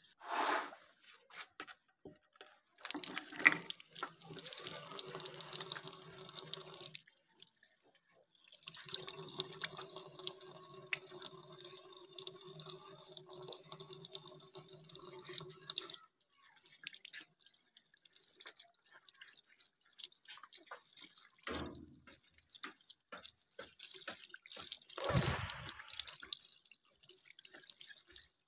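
Tap water running into a washbasin in two long stretches, then dripping and splashing irregularly as a clear plastic phone case is rinsed under the stream, with one louder splash near the end.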